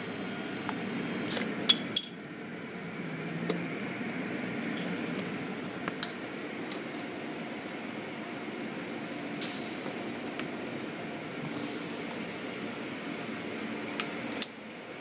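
Automatic car wash heard from inside the car: steady spray and machinery noise muffled by the windows, with sharp taps and clicks on the glass scattered through it. A high hiss swells twice as the spray passes.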